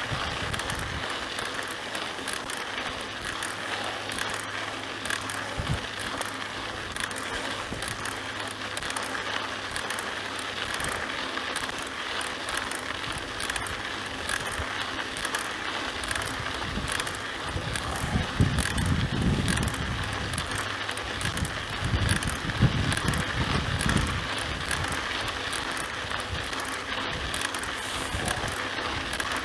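Mountain bike rolling along a dirt track: a steady crunch and hiss of the tyres on the loose, sandy surface, with the frame and parts rattling in a constant patter of small clicks. A deeper rumble comes through twice, past the middle.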